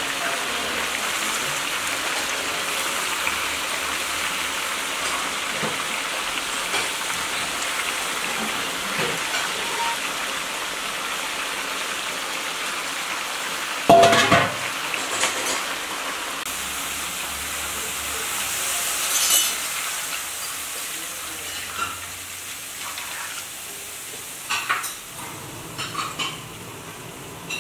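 Chicken and potatoes sizzling in a cast-iron kazan while whole tomatoes are set in with metal tongs; the sizzle slowly dies down. About halfway through there is one loud metal clank, followed later by a few lighter clinks of the tongs on the pot.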